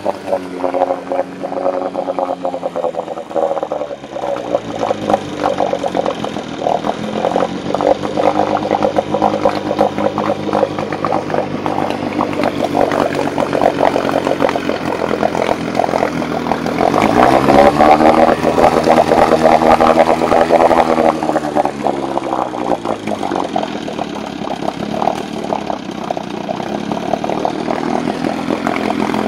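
6 hp Johnson CD-24D two-stroke outboard running with its lower unit in a water test tank. Its speed eases down over the first few seconds and holds steady. A little past halfway it revs up, stays high for a few seconds, then drops back to a lower steady speed.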